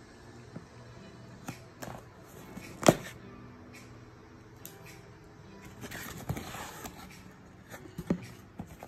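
Cardboard shipping box being cut open and unpacked: scissors snipping packing tape and the flaps knocking, with one sharp knock about three seconds in, then crinkling and rustling of crumpled kraft packing paper a few seconds later.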